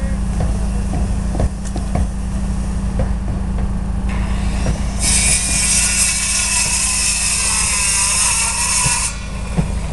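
A power saw cutting wood, coming in about four seconds in and stopping sharply near nine seconds, over a steady low rumble and a few light knocks.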